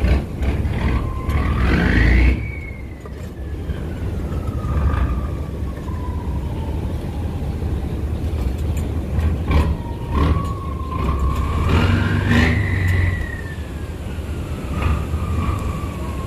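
A boat's diesel engine is throttled up twice under a steady low rumble. Each time a whine climbs quickly in pitch, then slowly sinks back as the engine eases off.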